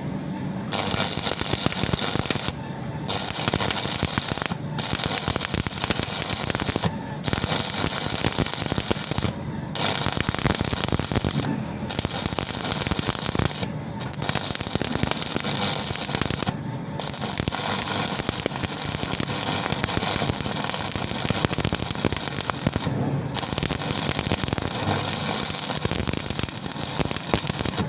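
Stick welding arc (SMAW) crackling and sizzling steadily as the electrode burns, broken by brief gaps every couple of seconds.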